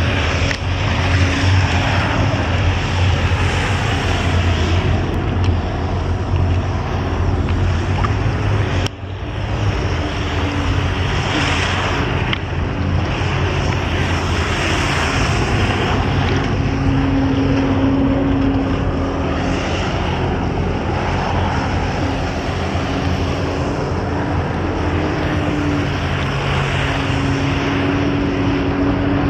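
Engine pumping water to a hose-fed water-jet flying platform, running hard at high revs with its pitch shifting up and down with the throttle, over the rush of the water jets spraying. The sound dips briefly about nine seconds in.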